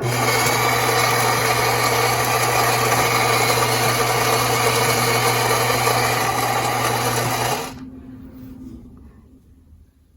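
Gaggia Anima Prestige super-automatic espresso machine running its cappuccino cycle: a loud, steady motorised whir over a low hum that cuts off abruptly about seven and a half seconds in.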